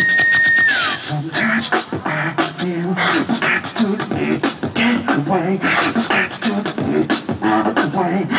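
Beatboxing: a high held tone slides down in pitch about a second in, then gives way to a fast beat of mouth-made kick, snare and hi-hat clicks over a pitched vocal bass line.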